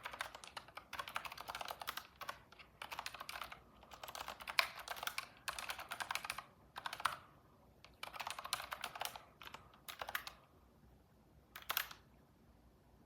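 Typing on a computer keyboard: quick runs of key clicks in bursts of one to two seconds with short pauses between, stopping about twelve seconds in.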